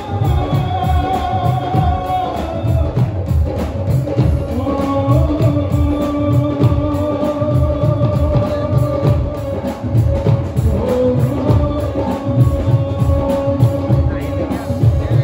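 Live amplified Hindi devotional (bhajan) performance: a male singer holding long notes over a band with drums and keyboard, a steady drum beat underneath, heard through stage loudspeakers.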